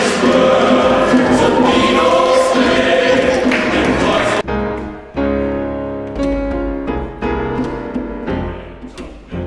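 Choir singing, then about four and a half seconds in an abrupt cut to instrumental music with sustained notes and low drum strikes.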